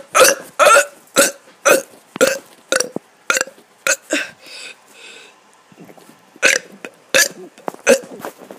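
A person burping over and over in short, quick belches, about two a second. After a pause of about a second and a half, several more burps follow near the end.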